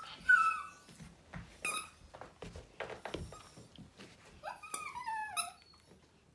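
Dog whining in short cries that fall in pitch: one at the start, then a run of several about four and a half seconds in, amid the soft clicks and rustles of a dog mouthing a plush toy.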